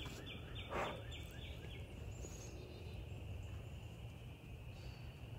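Woodland outdoor ambience: a bird repeats a short high chirp about three times a second for the first two seconds, with a brief swish about a second in, over a steady high-pitched background drone and a low wind rumble.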